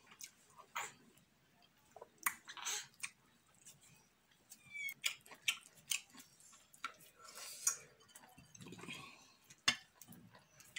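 Eating fufu with slippery okro and ogbono soup by hand: wet mouth clicks and smacks of chewing, with fingers scooping soup and knocking against the bowl, in irregular sharp clicks.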